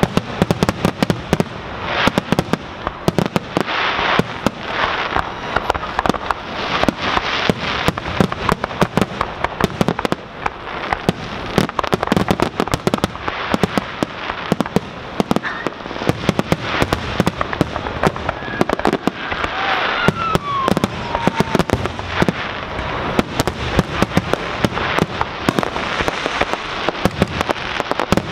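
Aerial fireworks shells bursting in quick succession: a dense, unbroken run of sharp bangs that never pauses.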